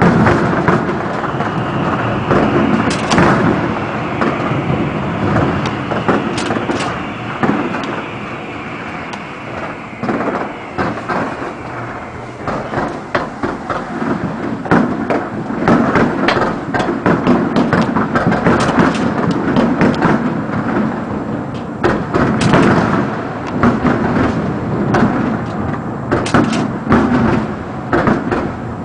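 New Year's fireworks display: a dense run of booming shell bursts and sharp cracks, many overlapping, over a continuous rumble.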